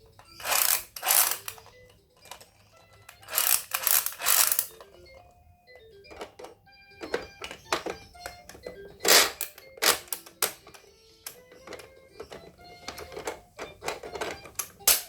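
Electronic VTech Drill and Learn Toolbox toy playing its sound effects: two long noisy buzzing bursts in the first five seconds, then short tinny melody notes among many sharp plastic clicks and taps.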